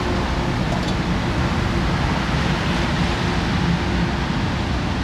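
Steady rushing noise with a low hum underneath and a faint tick about a second in.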